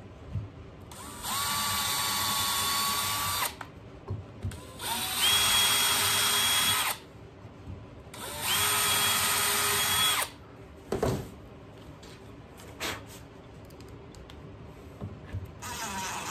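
DeWalt cordless drill boring pilot holes into wood: three runs of about two seconds each, the motor whine rising as it spins up and then holding steady. Near the end a quieter run of the drill starts driving a screw in.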